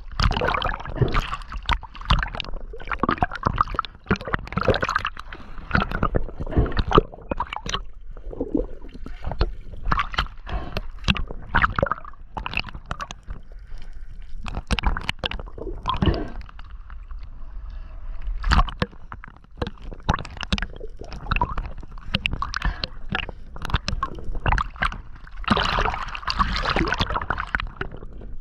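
Water sloshing and gurgling close around the camera, in uneven surges with many sharp knocks and bumps.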